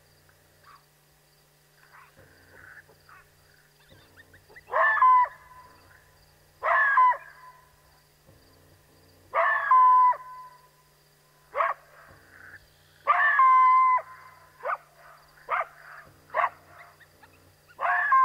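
Coyote barking, a series of about nine sharp barks starting around five seconds in, several drawn out into short held howls, spaced irregularly a second or two apart.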